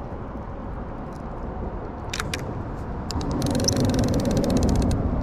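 Baitcasting fishing reel: two sharp clicks a little past two seconds in, then a rapid run of ticks with a low whir for about a second and a half as the spool turns. A steady low rumble runs underneath.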